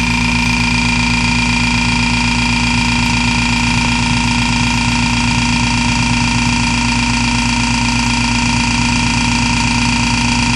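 Vacuum pump running steadily, a constant hum with a fast, even pulse underneath, drawing the air out of a sealed chamber.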